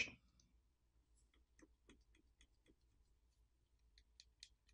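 Faint light clicks and ticks from the opened smartphone being handled by hand and with a small pry tool. They come as a scattered series, a little stronger near the end.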